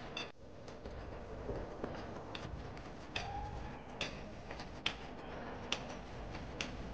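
Clothes hangers clicking and knocking against a hanging rail as garments are handled: about a dozen short, sharp clicks at uneven intervals over a steady low background noise.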